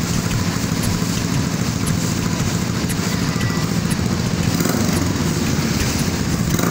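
Single-cylinder engine of a Yamaha Scorpio-based cafe racer running steadily through its custom handmade exhaust.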